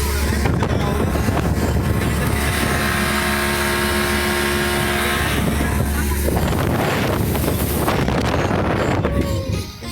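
Motor vehicle running with wind noise on the microphone: a loud, steady rumble that drops away near the end.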